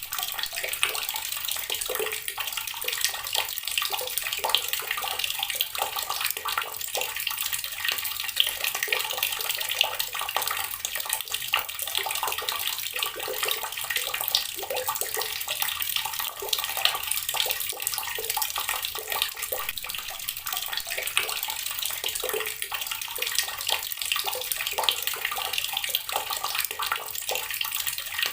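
Water from a tap running steadily and splashing, a continuous hiss with fine irregular spatters.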